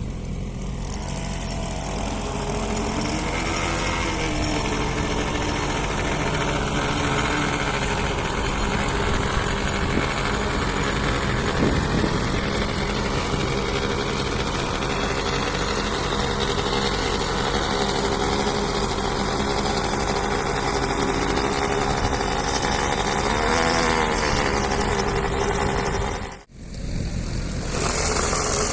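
Petrol engine of a concrete power trowel running steadily, its pitch wavering briefly a few seconds in and again near the end. The sound cuts out for an instant shortly before the end, then the engine carries on.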